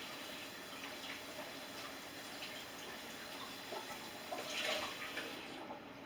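Kitchen tap running into the sink while dishes are rinsed, with scattered clinks of dishes. The water stops about five and a half seconds in.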